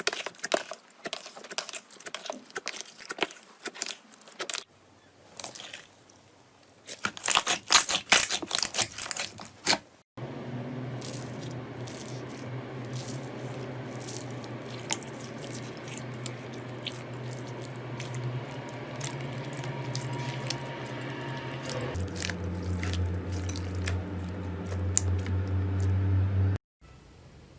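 Slime being squeezed and stretched: dense wet crackling and popping, loudest about eight seconds in. After a cut it gives way to a steady low hum with faint squishing over it; the hum drops in pitch about twelve seconds later.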